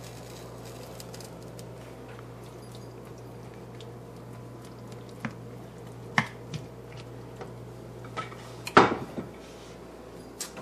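A spatula stirring shredded chicken into gravy in a skillet, knocking and scraping against the pan in scattered clacks from about halfway in, the loudest a little before the end. A steady low hum runs underneath.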